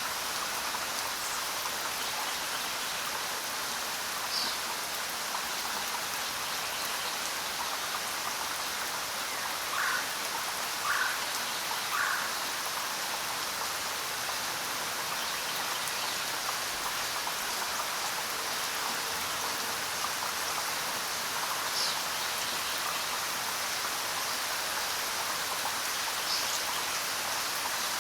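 Steady jungle rain falling, an even hiss. Short bird calls break through now and then: three lower calls about a second apart around ten seconds in, and a few brief high calls scattered through.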